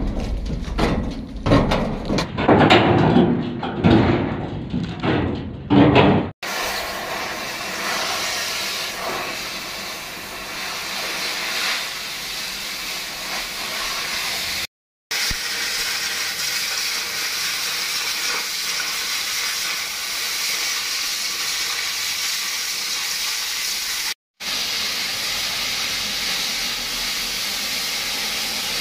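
Oxy-fuel cutting torch hissing steadily as it cuts through a shipping container's steel panel. The first six seconds or so are a louder, irregular rumbling with knocks before the steady hiss takes over, broken by two brief gaps.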